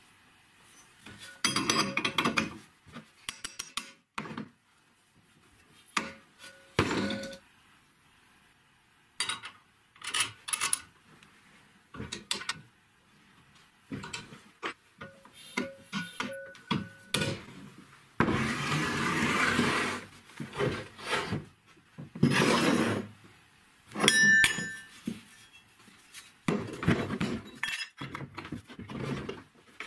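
Steel workshop parts being handled and fitted together on a wooden bench: scattered clinks and knocks of square steel tubing against the shock absorber bodies, some leaving a short metallic ring. Two longer stretches of metal sliding and rubbing come in the second half.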